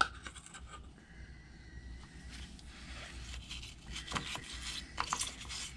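Brush scrubbing and dabbing rust-dissolving gel onto the rusted wall of a diesel engine's cylinder bore: irregular soft scrapes and small clicks, with a sharp click right at the start.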